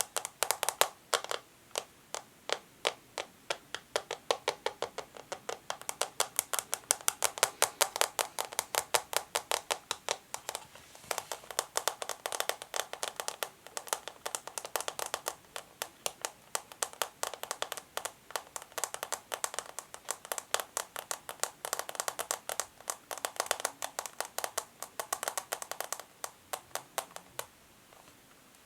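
Natural fingernails tapping quickly on plastic: crisp clicks, several a second in uneven runs, stopping about a second before the end.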